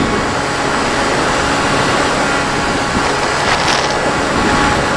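RC model aircraft's motor and propeller running steadily in flight, heard through the onboard camera, with a loud rush of air over the airframe that swells briefly a little past the middle.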